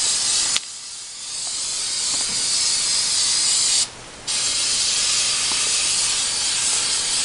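Aerosol can of Carbon-Off carbon remover spraying a steady hiss onto cast iron grill plates. The spray stops about half a second in and builds back up, then breaks off again briefly around four seconds in.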